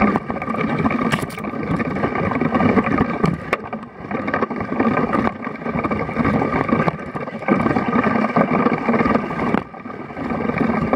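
Wind and riding noise picked up by a bike-mounted action camera as the mountain bike rolls over a wet, rough dirt trail: a steady loud rushing rumble that briefly drops twice.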